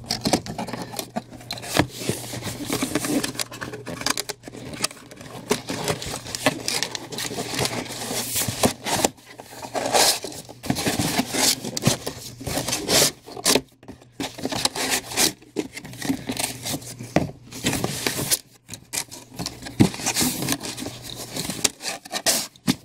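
Corrugated cardboard comic storage box being folded and pressed together by hand: irregular scraping, rubbing and knocking as the flaps are creased and pushed into place.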